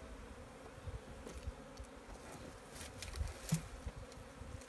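Honeybees buzzing around an opened hive, a steady hum. A few short knocks of wooden hive parts being handled come about three seconds in.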